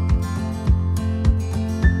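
Background music with a steady beat of low thumps about twice a second under sustained pitched notes.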